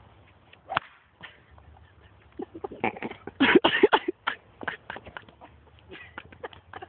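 A golf club hits a trick exploding golf ball, setting off a single sharp bang about a second in. About two seconds later comes a burst of loud laughing and shouting that dies away into scattered chuckles.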